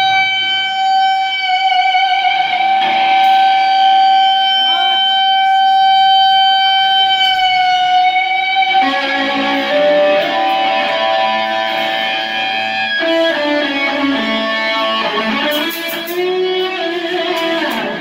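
Amplified electric guitar: one long held note for about the first nine seconds, then a run of changing notes.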